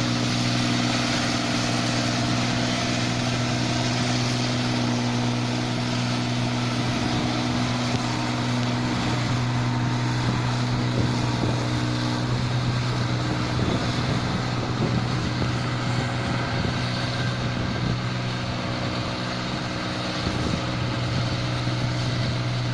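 New Holland 8070 combine harvester running steadily, a constant engine drone with a strong low hum and machinery noise over it.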